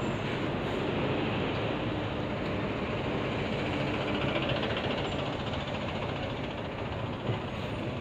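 A city bus driving past close by, its engine running over steady street traffic noise.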